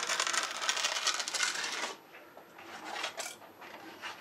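A wide trowel scraping across a wet cement surface in one continuous rasping stroke that stops about two seconds in, followed by a few light clicks and knocks as things are handled on the workbench.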